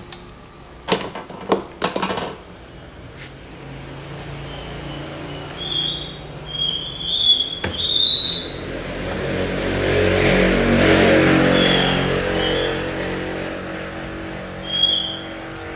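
Clicks and knocks of hands fitting a plastic spray bottle and lifting a wooden screen-printing frame out of its glass-topped exposure box. A passing engine swells and fades in the middle, and short high chirps come twice.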